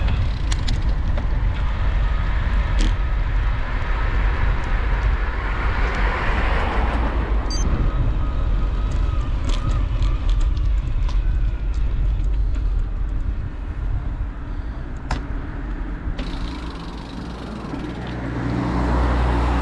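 Wind noise on the microphone of a moving camera, with road traffic: cars pass, loudest about six seconds in and again near the end. A few sharp clicks and rattles sound now and then.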